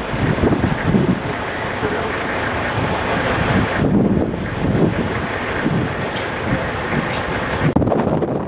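Outdoor street noise: vehicle engines, indistinct voices and wind buffeting the microphone, changing abruptly twice.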